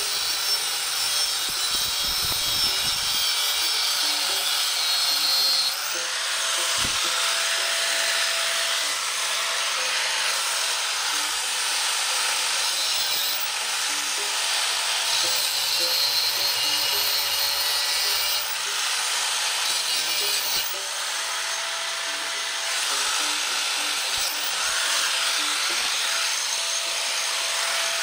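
Angle grinder cutting through the metal housing of a Prius electric power steering assist unit. It runs continuously, its motor pitch dipping and recovering several times as the disc bears down in the cut.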